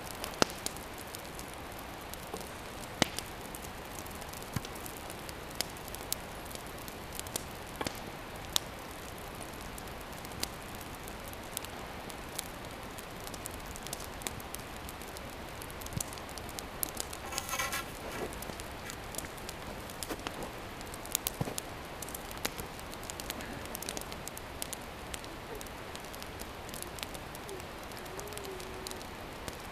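Wood fire crackling: irregular sharp pops and ticks over a steady hiss.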